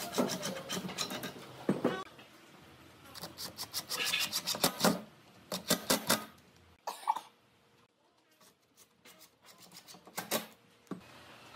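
A Makita cordless impact driver bores into pine boards with a rasping, scraping sound, while wooden panels are shifted and scraped against each other. It comes in several short spells with quieter gaps between.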